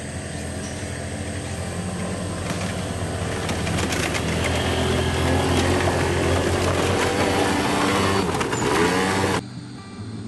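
Two Honda Gyro three-wheeled scooters, a Gyro Canopy and a Gyro X, climbing a gravel track. Their small engines run louder and louder as they come closer, and the engine pitch rises briefly near the end. The sound cuts off abruptly, and background music follows.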